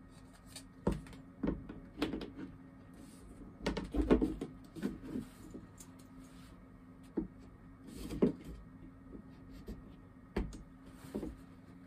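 A perforated pegboard being handled against 3D-printed plastic wall mounts while its pins are pushed in: a run of light irregular knocks, clicks and rattles, busiest around four seconds in, over a faint steady hum.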